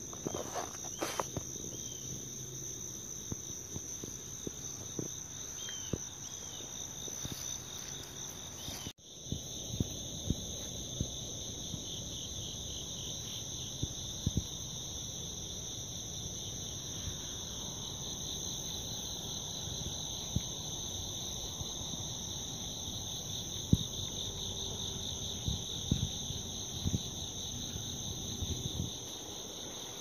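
Steady chorus of crickets and other insects trilling at two high pitches, the lower one pulsing. The sound drops out for a moment about nine seconds in, and there are scattered faint taps and knocks, the loudest about two thirds of the way through.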